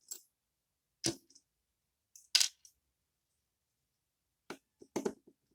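A few sharp, separate clicks and taps of small metal parts as a pin-tumbler padlock and its tools are handled on a desk, the loudest about halfway through and two more close together near the end.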